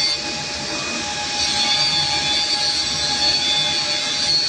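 Automatic PCB assembly machine running: a steady mechanical whir and hum with a few thin, high whining tones over it.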